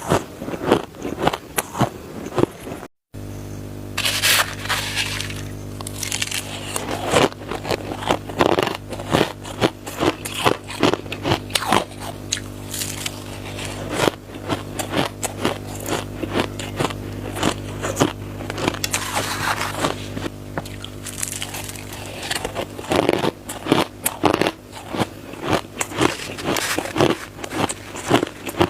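Close-up crunching of crushed, shaved ice being bitten and chewed: rapid, irregular crisp crunches. It breaks off for a moment about 3 seconds in, and from then on a steady low hum runs under the crunching.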